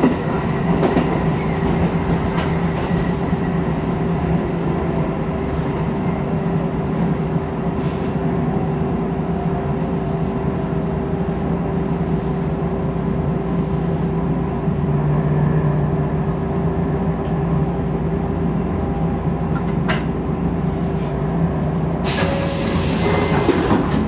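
Shin-Keisei 8800 series electric train heard from the cab, running with a steady hum from its equipment and wheel noise on the rails as it slows along a station platform. A short burst of hissing comes near the end.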